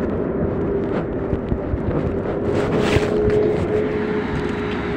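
Steady drone of heavy machinery running, with a constant hum throughout. A few short knocks and rustles come from the phone rubbing against clothing.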